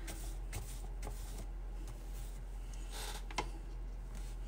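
Paintbrush strokes brushing water across watercolour paper, a soft rubbing swish, with a light tap about three and a half seconds in.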